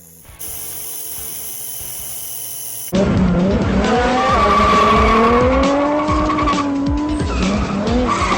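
Car tyre squeal with an engine, as in a burnout, wavering up and down in pitch. It comes in suddenly about three seconds in, after a steady hiss.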